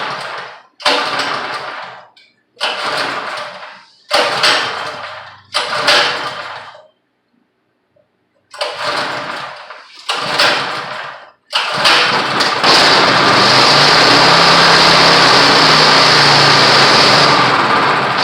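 163 cc single-cylinder pressure washer engine being pull-started over and over: about seven times it fires briefly and dies. Then, about twelve seconds in, it catches and runs steadily for several seconds. It is running on old, poor fuel and may have too much gas in it.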